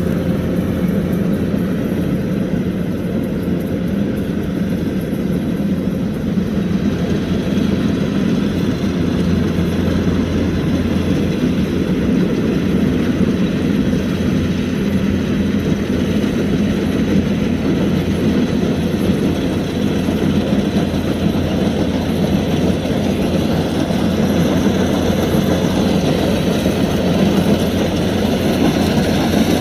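Kubota DC-105X combine harvester's diesel engine running steadily at a constant pitch, with a low hum.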